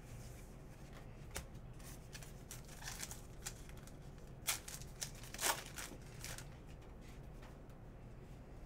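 Trading cards being handled and a card pack's wrapper being torn open: a few short crinkling, tearing rustles over a low hum, the loudest about halfway through.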